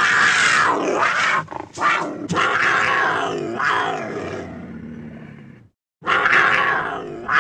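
Edited jaguar calls: one long call stutters briefly about one and a half seconds in, then carries on and fades away. After a short clean cut to silence, a second call starts near the end.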